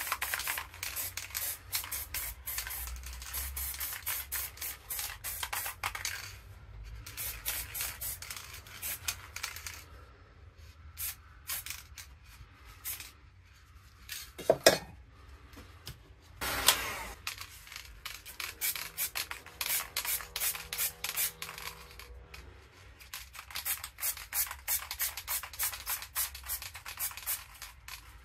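A gloved hand rubbing and scraping over a freshly spray-painted board in runs of quick strokes, with two sharp knocks around the middle.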